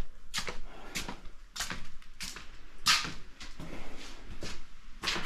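Irregular handling noises: short rustles and knocks, a couple a second, with one louder one about three seconds in.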